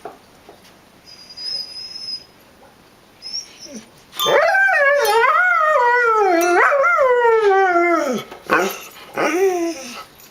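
A dog howls once for about four seconds, starting after a few quiet seconds; the pitch wavers and slides downward. It then gives two short, falling calls near the end.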